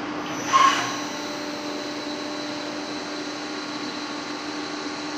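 Romi GL280 CNC lathe running, a steady machine hum made of several even tones, with a short louder whirring burst about half a second in.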